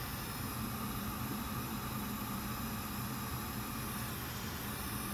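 Steady whir and hiss of small workbench fans, the fume extractor and hot air station running, with a low hum beneath.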